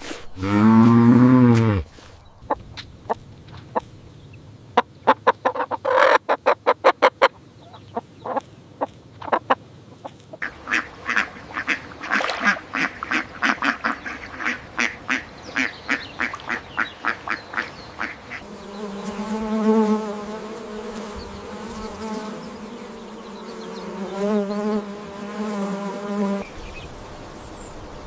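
A series of different animal sounds, one after another. First a loud, short call falling in pitch, then scattered sharp clicks, then a long run of quick repeated calls, about three or four a second, and finally a steady buzzing hum that stops a couple of seconds before the end.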